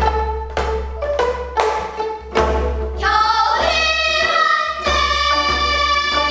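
Gayageum ensemble plucking a steady rhythmic accompaniment to a Korean new folk song (sinminyo); about three seconds in, girls' voices come in singing together in long, bending held notes over the plucked strings.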